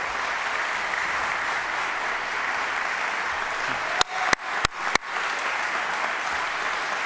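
A roomful of people applauding steadily. A little past halfway, four sharp, close claps stand out, about three a second, from someone clapping at the podium microphone.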